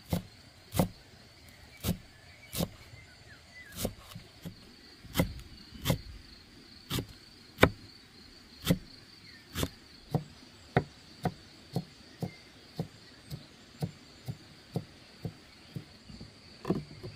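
A steady series of sharp knocks, about one every second at first, quickening to about two a second partway through, with the loudest knock near the middle. Crickets chirp faintly and steadily behind them.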